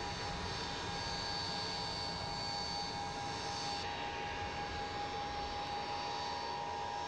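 Aircraft engines running with a steady whine over a broad rushing noise.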